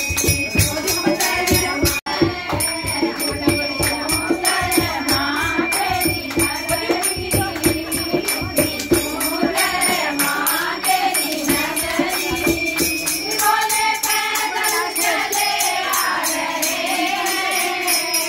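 A group of women singing a Hindu devotional bhajan together, kirtan-style, over a steady beat of hand percussion with jingling. The low beat thins out about two-thirds of the way through while the singing and jingling go on.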